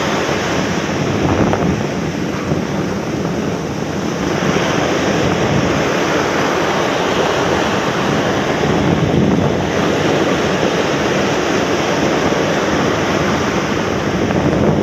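Small waves breaking and washing up a sandy beach, in a steady rush of surf, with wind buffeting the microphone.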